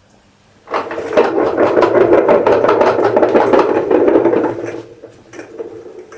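A dense rasping scrape made of quick repeated strokes, like a hand tool worked hard against a surface, lasting about four seconds. Fainter knocks and rustles follow.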